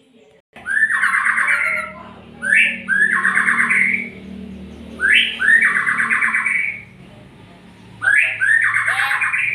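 Murai songbird singing loudly in repeated phrases. Each phrase is a quick rising note followed by a rapid buzzy trill lasting over a second, four phrases in all with short pauses between.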